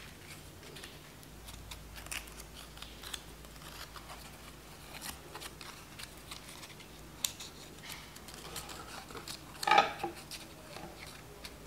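Quiet handling of cut paper: scattered rustles and small ticks as paper petals are creased over a plastic ruler, with a brief louder sound about ten seconds in.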